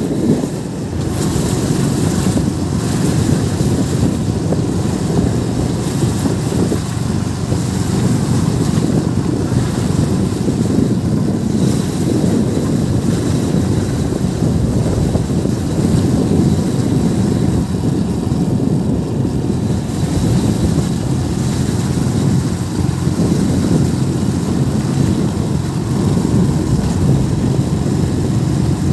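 Motorcycle engine running steadily while riding at a constant pace, with wind rushing over the microphone.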